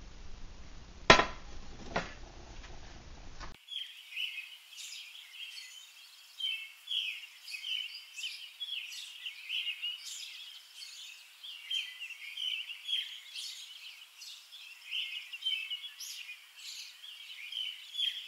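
Two sharp knocks about a second apart, then after a sudden cut a busy chorus of small birds chirping and twittering, many short high calls overlapping.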